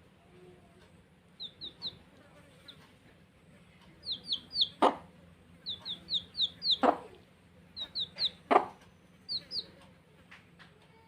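Baby chicks peeping: short, high, falling peeps in quick runs of two to four. Three sharp taps, about halfway through and again twice later, are the loudest sounds.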